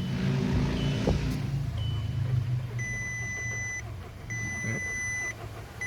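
VW Golf Mk5's 1.6-litre engine being started: about a second of cranking as it catches, then running rough and low, struggling as if choked. The owner reads this as a cylinder 4 misfire. Dashboard warning beeps sound throughout: short high beeps about once a second, then longer tones repeating about every 1.5 seconds.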